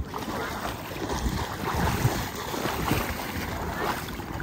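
Legs wading through shallow floodwater and grass, the water sloshing with each step, with wind buffeting the microphone.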